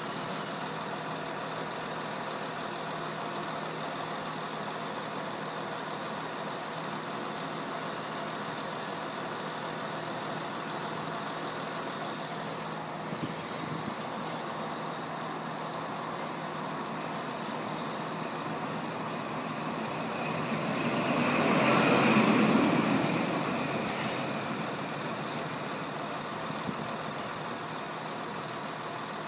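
High Speed Train (InterCity 125) pulling out: a steady diesel drone from its Class 43 power car as the Mark 3 coaches roll by. Past the middle the drone swells to its loudest as a power car passes close, then fades away.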